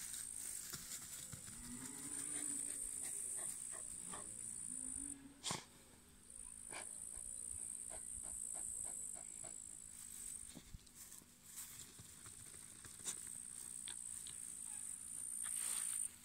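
A dog digging into grassy ground, its paws scratching and scraping at the soil in short irregular strokes. Behind it runs a steady high insect buzz that breaks off twice, and a low drawn-out animal call comes about two seconds in.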